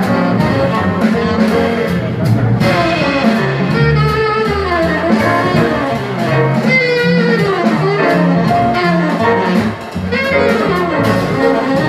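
Live jazz combo playing: a tenor saxophone carries the melody in bending, gliding phrases over piano, double bass and drums.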